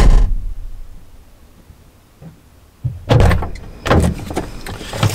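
A heavy low thump, then about three seconds in the click of a car's door handle and latch as the driver's door is pulled open, followed by further knocks and handling noise.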